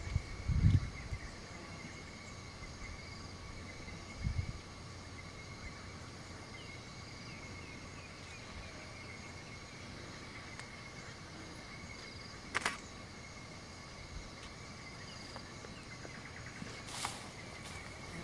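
Steady outdoor ambience under a continuous high insect drone, with faint short chirps now and then. Two brief low thumps come in the first few seconds, and two sharp clicks come later.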